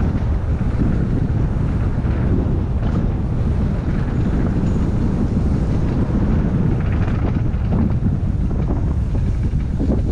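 Wind buffeting the microphone of a camera on a moving mountain bike: a steady, loud, low rumble.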